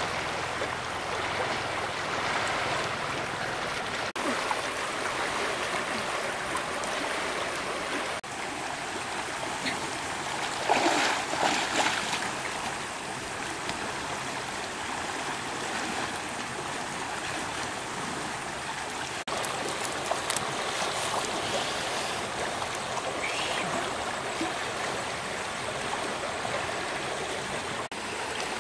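Stream water flowing steadily, with a brief louder rush of water noise about eleven seconds in.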